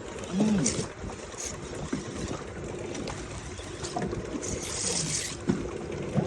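Ambience on a small fishing boat: steady wind and water noise over a faint steady hum, with a brief voice sound about half a second in and a hissing burst about four and a half seconds in.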